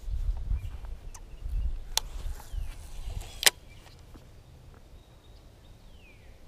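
Low rumble of wind and handling on the microphone, then two sharp clicks of a baitcasting reel being handled, the second louder, about a second and a half apart.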